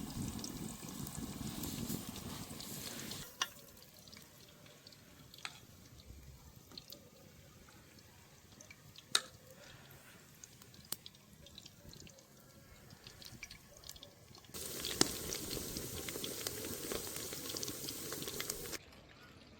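Food frying in hot oil, a steady sizzle that drops away about three seconds in, leaving a few sharp clicks of utensils, then comes back near the end and cuts off suddenly.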